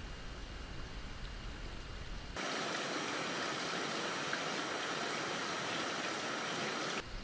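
Running water rushing steadily, starting suddenly about two and a half seconds in and cutting off suddenly just before the end; before it, only a quieter outdoor hush with a low rumble.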